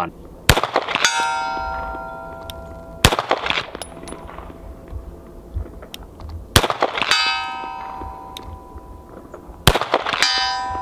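Four slow, deliberate shots from a 9mm Dan Wesson DWX pistol, each followed about half a second later by the ringing clang of a steel target being hit, the ring fading over a second or two.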